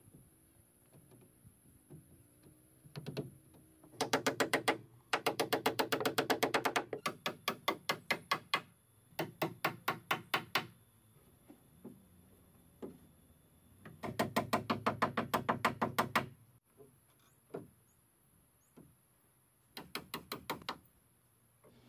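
Claw hammer driving nails into wooden roof timbers, in about six runs of quick, evenly spaced blows, several a second, with short pauses between.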